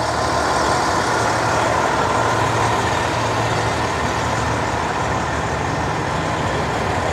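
Steady low drone of idling diesel truck engines.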